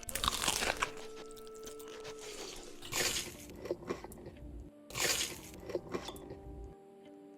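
Loud crunching bites of crisp food, three bursts a couple of seconds apart, with faint steady music tones underneath.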